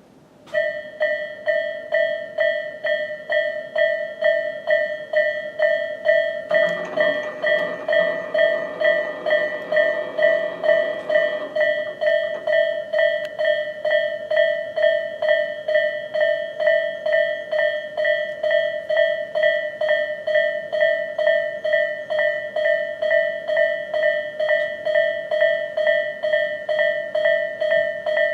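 Japanese railroad crossing warning bell ringing: a steady, even chain of clear dinging strikes, each decaying before the next, starting about half a second in. About six seconds in a lower rumbling sound joins under the bell for about five seconds.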